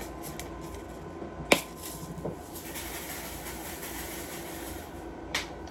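Handling noises while laundry is loaded into a washing machine: two sharp knocks about four seconds apart, with a fainter one between, over a low steady hum.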